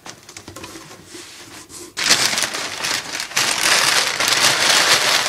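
Crumpled packing paper crinkling and rustling as handfuls are pulled out of a cardboard box. It is faint at first, then loud and dense from about two seconds in.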